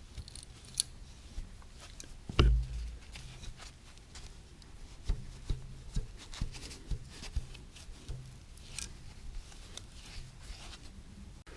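A tap turned by hand into a metal part, cutting a 1/2-13 thread: scattered small clicks and creaks as it cuts, with one loud thump about two and a half seconds in.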